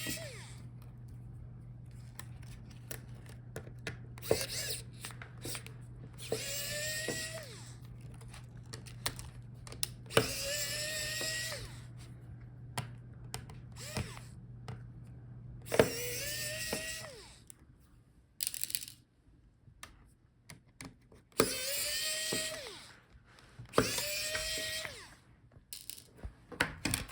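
Small electric screwdriver backing out tiny laptop screws in short runs of about a second each, five or six times, its motor whirring up to speed and winding down between screws.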